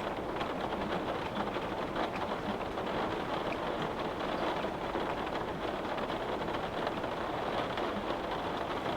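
Steady rain pattering on a windowpane: an even hiss with many small drop ticks.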